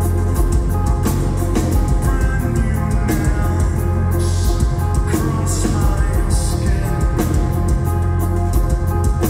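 Metal band playing live through a concert PA, heard from the crowd: sustained distorted electric guitars over bass and drums, loud and steady.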